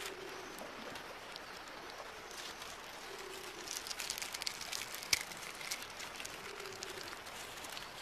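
Forest ambience: a low dove-like coo repeating about every three seconds, with a cluster of sharp crackles and clicks in the middle.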